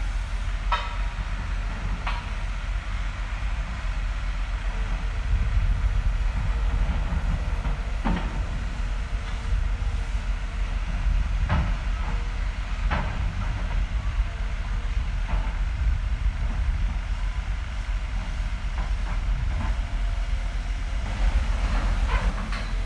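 Construction site ambience: heavy machinery running with a steady low rumble, broken by irregular sharp metallic clanks and knocks. A faint steady whine joins about five seconds in.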